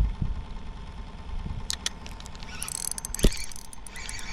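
Fishing reel winding in a hooked fish, its mechanism giving off rapid, dense clicking that starts a little under two seconds in. One sharp knock about three seconds in.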